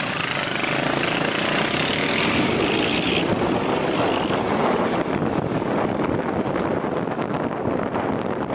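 Motorcycle being ridden at speed: its engine runs under a steady rush of wind buffeting the microphone. The upper hiss drops away about three seconds in.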